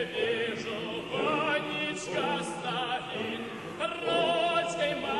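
Background classical music with operatic singing: a voice holds notes with a wide vibrato over sustained accompaniment.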